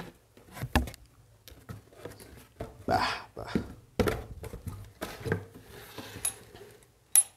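Cardboard packaging being handled: box flaps and a cardboard insert rustling and scraping while a small bench vise is lifted out of its box, with scattered knocks and a sharp click near the end.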